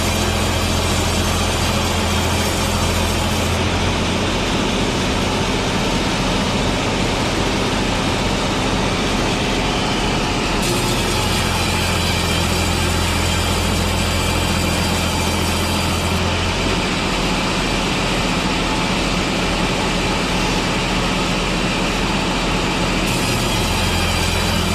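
Sawmill machinery running continuously: a loud, steady machine noise whose low hum drops out and returns, changing its tone about every six or seven seconds.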